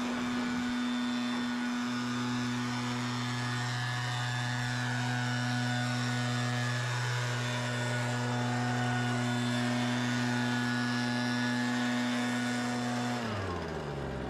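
Backpack leaf blower engine running steadily at a constant speed, then winding down about a second before the end as the throttle is let off.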